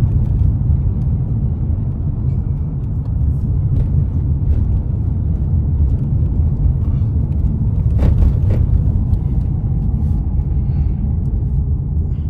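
Steady low rumble of a car being driven, with a brief knock about eight seconds in.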